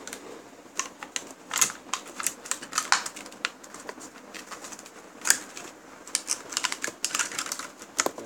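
Hot Wheels blister package being torn open by hand: plastic and cardboard crackling, with irregular sharp clicks and snaps.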